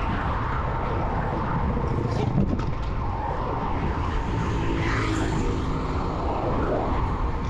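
Wind rushing and buffeting over the microphone of a road bike descending fast. A motor vehicle's engine runs close by from about three seconds in until near the end.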